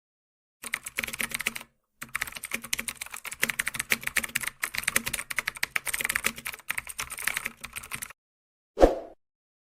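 Rapid computer-keyboard typing in two runs, a short one and then a long one after a brief pause. A single dull thump follows near the end.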